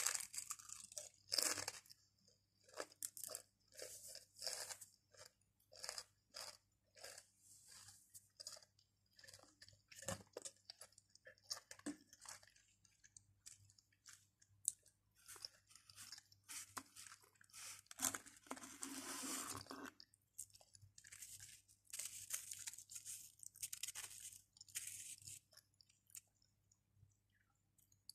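Close-up crunching and chewing of Pringles potato crisps: many short, crisp bites and chews with quiet gaps between them, and a longer stretch of noise about two-thirds through.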